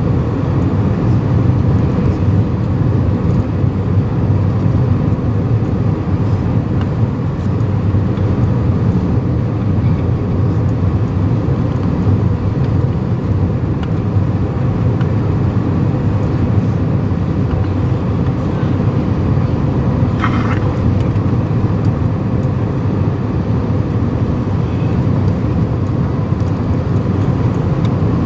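Steady low rumble of strong wind buffeting the microphone, with one brief higher chirp about twenty seconds in.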